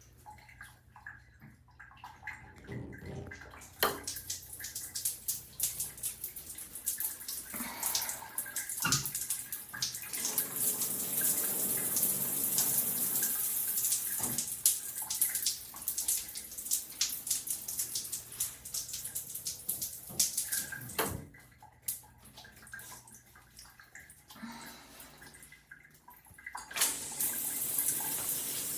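Water spraying from a shower head, a steady hiss that starts a few seconds in, sprinkled with sharp knocks. It drops away to a few knocks and drips, then comes back strongly near the end.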